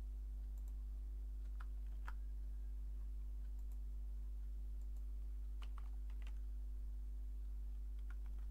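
Computer keyboard keys tapped in a few short, scattered bursts: a couple of lone taps, then small clusters of keystrokes. A steady low hum runs underneath.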